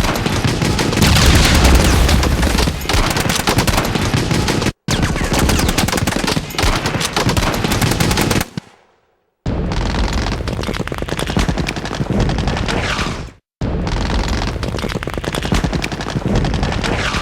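Rapid automatic gunfire, a continuous fusillade of shots. It breaks off abruptly three times, about five, nine and fourteen seconds in, before resuming.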